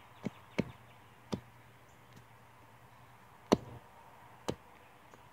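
A thin rod jabbed down into leafy soil, making about five sharp, irregular knocks, the loudest about three and a half seconds in. It is striking something hard buried in the ground, which could be a rock.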